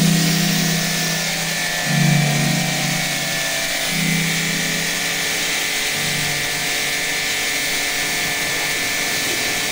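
Electric pressure washer spraying a jet of water onto a car's body panels: a steady hiss with the machine's motor hum, the low hum swelling about every two seconds in the first few seconds.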